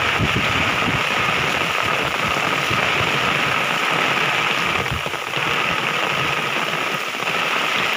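Steady rain hissing, with low rumbles of wind on the microphone.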